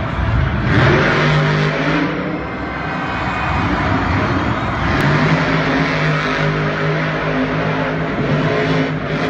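Monster truck's supercharged V8 engine running and revving as the truck drives around a dirt stadium arena. The engine note swells about a second in, eases, then rises again about halfway through.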